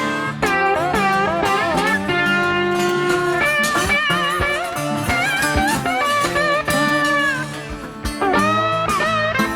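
Blues-rock music: an electric lead guitar plays a solo with bent notes over bass and drums.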